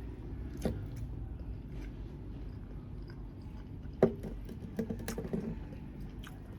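Someone eating grilled chicken: soft chewing and handling of the food, with a few sharp clicks, the loudest about four seconds in, and a short run of small crackles just after.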